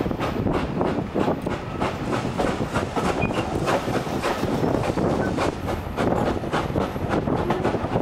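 Steam-hauled passenger train running along the line, heard from an open coach window: a steady rumble with rapid clicking and clattering of the wheels over the rails.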